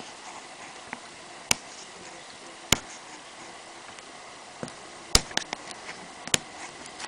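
Plastic shrink-wrap on a boxed iPad being cut open by hand: a few scattered sharp clicks and snaps of the plastic and cutting tool over a quiet background.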